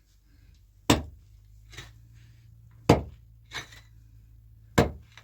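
Three sharp blows about two seconds apart, a hand tool striking something hard, each with a clinking edge and followed by a lighter knock.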